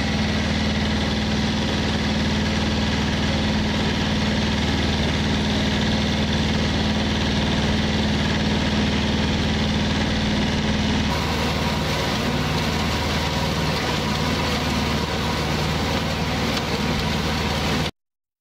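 Compact tractor engine running steadily under load while it mows long rough grass, with a strong steady hum. About eleven seconds in the hum changes and turns rougher, and near the end the sound cuts off suddenly.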